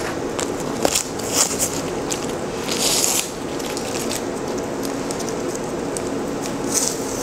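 Handling noise from a plastic tablet case as protective film is peeled off it: a few short crackles and rustles, with one half-second hiss about three seconds in. A steady low machine hum runs beneath.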